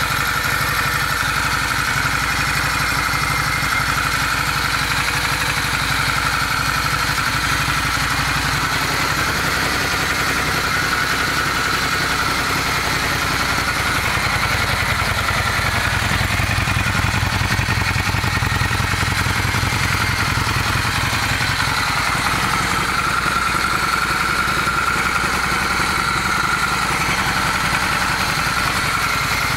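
Honda Steed 400 V-twin engine running steadily at idle, with the knock that the owner places low in the rear (left) cylinder.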